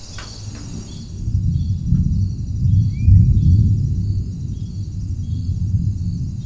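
Outdoor nature ambience: a steady, pulsing high chirring of insects over a low rumble like wind, with one short bird chirp about three seconds in.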